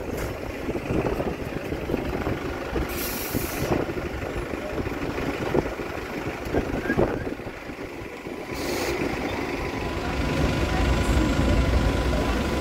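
Double-decker bus passing close at low speed, its engine rumbling, with two short hisses of air from its air brakes, about three seconds in and again near nine seconds. Traffic rumble grows louder near the end.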